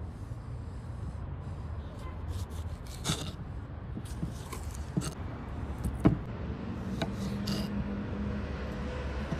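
Small kitchen knife slicing tomatoes and then a lemon on a wooden cutting board: soft cutting sounds and several sharp taps of the blade on the board, the loudest about six seconds in, over a steady low rumble.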